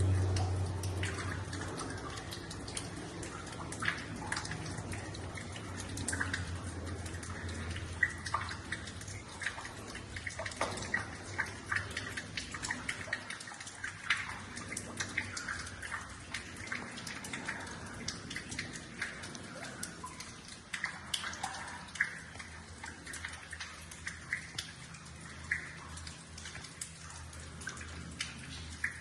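Water trickling and dripping, with many small irregular drops and splashes over a steady wash. A low hum fades over the first couple of seconds.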